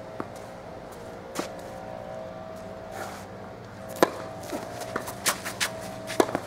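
Tennis ball hit with rackets in a doubles point: a couple of light ball bounces, then a hard serve strike about four seconds in, followed by several quicker hits of the return and volleys near the end.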